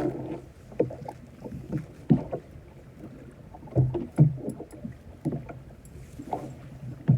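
Irregular knocks and thumps about a small fishing boat, roughly one a second, over a low steady background.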